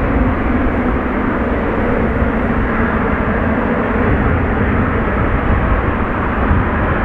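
Boeing 747 jet engines running: a loud, steady noise, heaviest in the low end, with no change in pitch.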